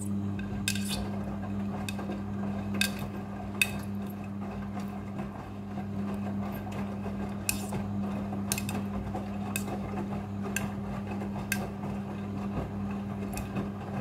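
Midea front-loading washing machine tumbling a wet load during the rinse: a steady low motor hum with swishing water, and sharp metallic clinks every second or so as zips and buttons knock against the drum.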